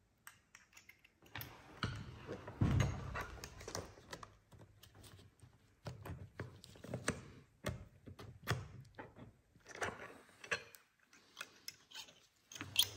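Scattered light metal clicks and knocks at irregular intervals from a piston wrist-pin clip installation tool being handled and worked while seating a retaining clip.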